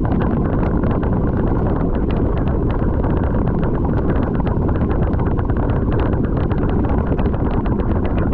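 Heavy wind buffeting on a moving camera's microphone over a steady low rumble, with frequent sharp rattles and knocks from travelling fast over rough ground on a downhill run.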